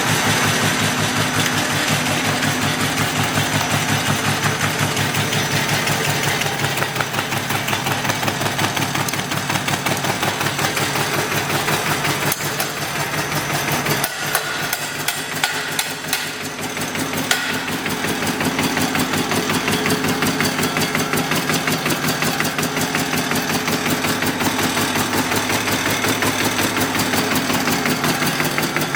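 A CNC punching machine for wooden coffee stirring sticks (SK-003S) running, its blades stamping the wooden veneer in a fast, even rhythm of strokes. There is a brief drop about halfway through before the rhythm carries on.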